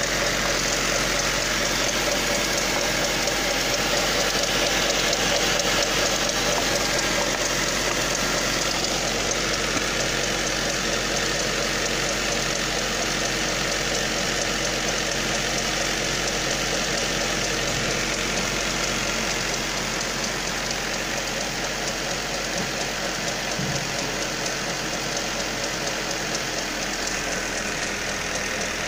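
Ford Mondeo Mk3's 1.8 CHBA Duratec inline-four petrol engine idling steadily, heard close up from the engine bay.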